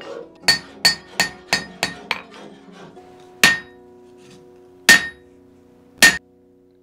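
Forging hammer striking a flatter held on a tomahawk head on the anvil, with sharp metallic blows. A quick run of six strikes at about three a second is followed by three single, louder blows spaced more than a second apart.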